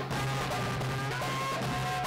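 Lively festive music: a trumpet plays a melody of held notes over drum accompaniment.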